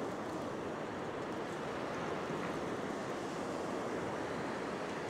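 Ocean surf breaking and washing up a sandy beach: a steady, unbroken rushing.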